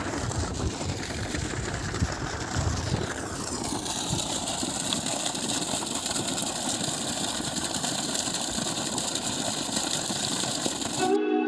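Water gushing from a borewell's outlet pipe and splashing onto a flooded paddy field: a steady rushing noise. It has low rumbling in the first few seconds, then settles into an even rush that stops abruptly near the end.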